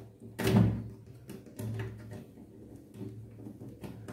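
Screwdriver taking out the small screws that hold an RO water purifier's float switch: scattered light clicks and scrapes, with a brief louder sound about half a second in.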